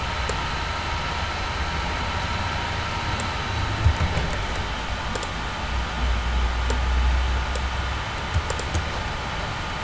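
Steady hiss and low hum of a computer recording setup, with a few faint, sharp computer mouse clicks scattered through as objects are selected in software.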